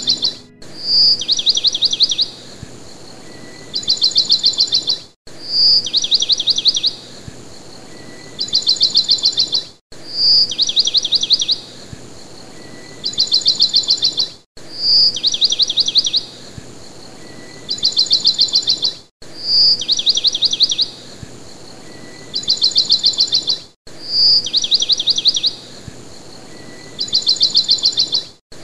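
Looped bird chirping: a short high whistle followed by a fast trill, the same pattern repeating every four to five seconds, with a brief cut-out each time the loop restarts.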